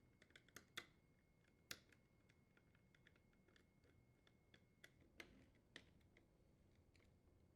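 Faint, scattered metallic clicks and ticks of a nut driver and screws as the upper and lower screws are threaded in to fix a dishwasher door hinge to the frame.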